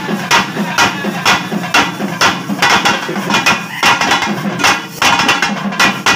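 Pambai drums beaten with sticks in a steady rhythm, sharp ringing strokes about twice a second.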